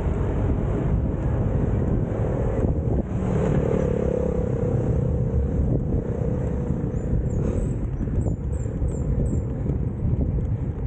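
Steady low rumble of wind and road noise, heard through a camera mounted on a road bike climbing at about 16 km/h: air buffeting the microphone and tyres rolling on asphalt.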